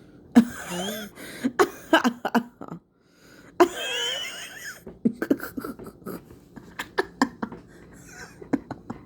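A man's voice making wordless noises: short squeaky, gliding vocal sounds mixed with a run of sharp clicks and pops.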